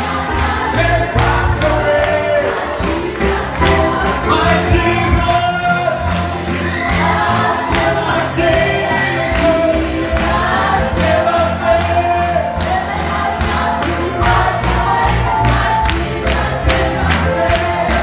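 Gospel praise music: voices singing together over a band with a steady beat and a deep bass line.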